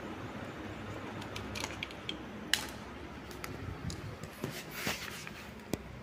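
Niko NK-562 industrial ceiling fan running with a steady whir, with a scatter of sharp clicks and short rustles over it, the loudest click about two and a half seconds in. The whir eases slightly near the end.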